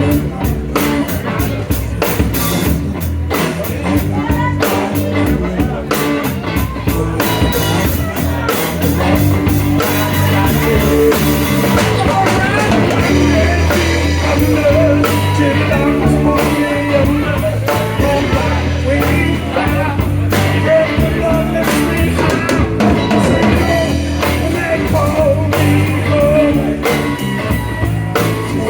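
Live rock band playing loudly, with drum kit and guitar driving a steady beat.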